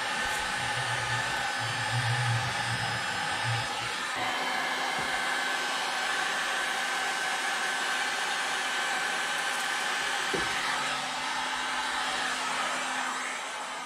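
Electric heat gun blowing steadily, a constant fan hum with a thin whine, heating old body trim so that it can be peeled off.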